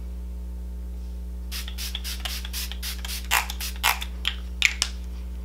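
Smashbox primer water pump-spray bottle being spritzed at the face: a quick run of short spray bursts starting about a second and a half in, over a steady low hum.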